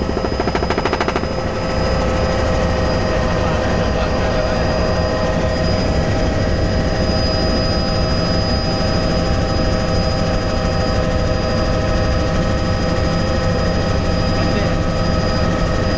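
Helicopter in flight heard from inside the cabin: a steady engine whine made of several constant tones over a loud low drone, with a brief rapid flutter in the first second.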